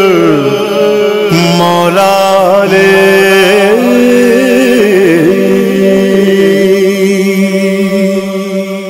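Male voice chanting a long, wordless, melismatic closing line over a steady drone, the melody gliding and wavering around held notes; the sound fades out near the end.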